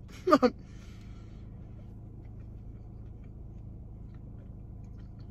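Quiet car interior: a steady low hum, with a short voiced murmur about half a second in and a few faint scattered clicks.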